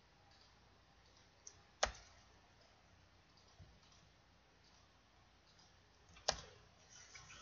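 Two sharp clicks from a computer mouse and keyboard, about four and a half seconds apart, with a few fainter clicks between them, over faint room hiss.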